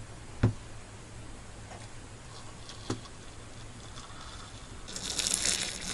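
Quiet handling of things at a wooden table: a single dull knock about half a second in, a small click near three seconds, then a brief hiss near the end.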